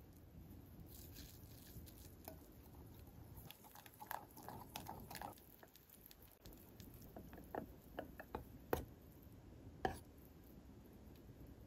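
Quiet food-preparation handling sounds: scattered soft taps and light wet clicks of utensils and food, with two sharper clicks near the end.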